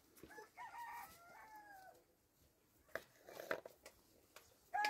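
A rooster crowing faintly in one long, drawn-out call, with a second crow starting just at the end.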